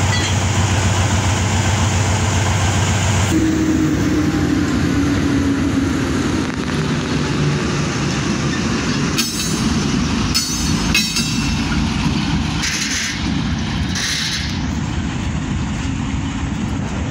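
AGE-30 diesel locomotive engine running, its note changing abruptly about three seconds in and then slowly falling, with train rumble throughout. Several brief noisy bursts come from the train in the second half.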